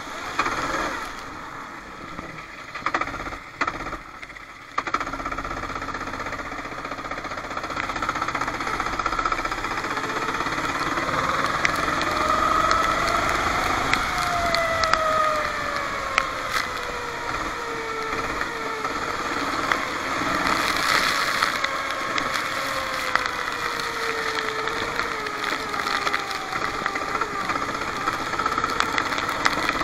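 Racing kart engine recorded onboard, running low and quiet for the first few seconds after a spin in the wet, then picking up from about five seconds in and revving up and down repeatedly as the kart drives on.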